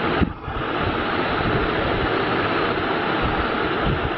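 Steady rushing background noise with an uneven low rumble underneath, dipping briefly about a third of a second in; no distinct event stands out.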